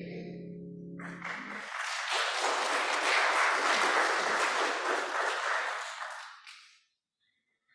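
The last piano chord of a song fading out, then a congregation applauding for about five seconds before the clapping dies away.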